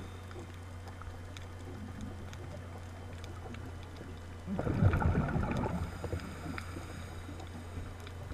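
Muffled underwater camera audio: a steady low hum, broken about halfway through by a burst of bubbling that lasts a second and a half, typical of a scuba diver exhaling through the regulator.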